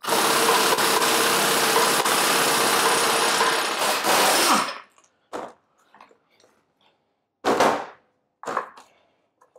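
Pneumatic impact wrench running steadily for about four and a half seconds, spinning the screw of a ball joint press to push the U-joint cross through the driveshaft yoke and press out a bearing cap, then stopping abruptly. A few short knocks follow.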